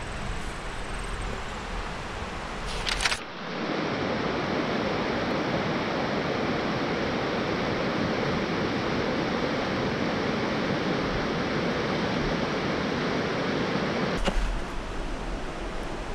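Steady rush of white-water rapids on the Winnipesaukee River running over rocks. Before it, for the first three seconds, low wind rumble on the microphone ends in a brief rustle, and near the end the rush gives way to quieter water running in the shallows.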